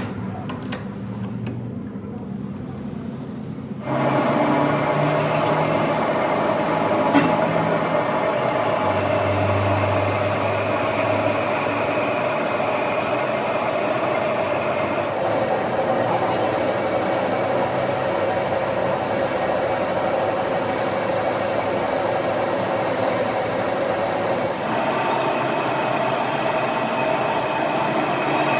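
Machine tool working metal: a steady scraping, cutting noise with a constant whine, changing abruptly about four seconds in, midway and near the end.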